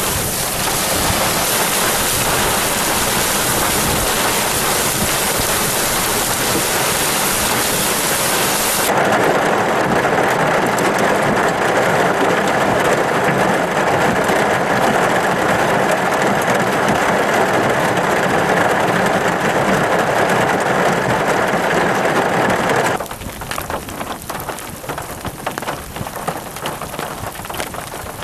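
Heavy thunderstorm rain, a dense steady hiss. About nine seconds in it turns abruptly fuller and louder, and about twenty-three seconds in it drops suddenly to lighter rain with separate drop impacts.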